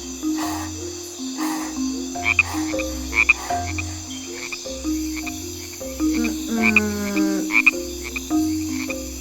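Frogs croaking in a steady, repeating rhythm, with short high chirps and one longer falling call about seven seconds in.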